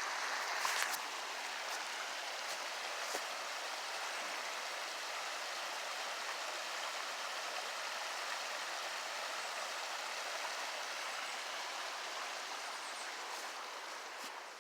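Steady rushing of a fast-flowing river, an even hiss of water with no low rumble, growing a little fainter over the last couple of seconds.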